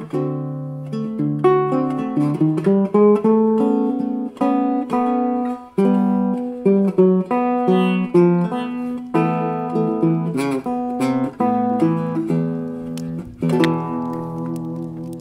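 Background music: acoustic guitar picking a melody.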